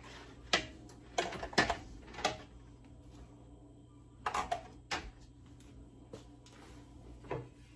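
Glass canning jars clinking and knocking as they are set down in a pressure canner: a string of separate sharp knocks, several in the first two and a half seconds, a few more around four to five seconds in and one near the end.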